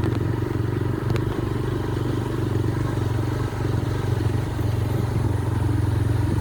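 Motorcycle engine running steadily at a low hum while riding, with a brief click about a second in.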